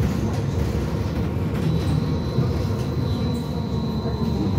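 BKM 43300D trolleybus heard from inside the cabin while moving: a steady low rumble of tyres and body. A thin, high, steady whine sets in about two seconds in.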